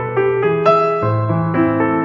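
Piano music: a melody of struck notes over low held bass notes.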